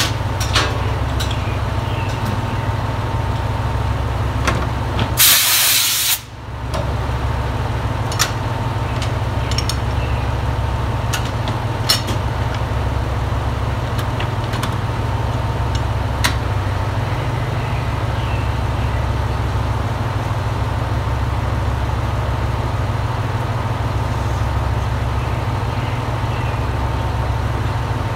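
Diesel railcars idling with a steady low rumble while being coupled. About five seconds in, compressed air hisses out in a loud burst for about a second. Scattered sharp metallic clicks and knocks come from the coupler work.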